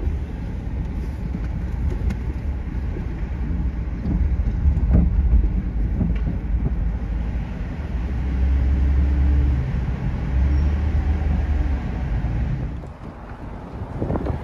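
Car driving along city streets: a steady low road-and-engine rumble that eases off near the end.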